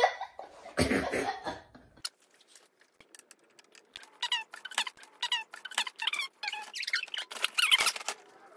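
A child's voice at first, then the sped-up audio of a time-lapse: short, high-pitched, squeaky chipmunk-like voices chattering rapidly, with light clicks of parts being handled.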